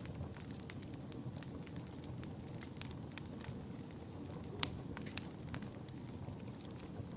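Wood fire burning in a fireplace: a steady low rumble of flames with irregular sharp crackles and pops from the burning wood, one louder pop about four and a half seconds in.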